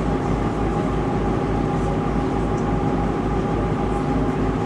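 Steady drone of a cruise boat's engine, with a regular low throb about three times a second.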